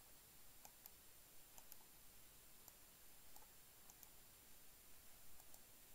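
Faint computer mouse clicks, about ten, several in quick pairs, over near-silent room tone.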